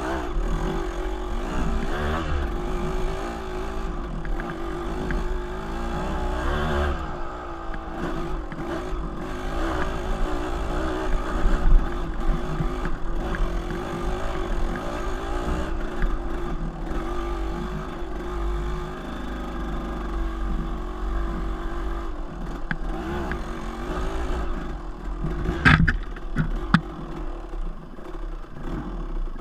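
Dirt bike engine running at low speed, its pitch rising and falling with the throttle, with clatter from the bike over rocky ground and a sharp knock near the end.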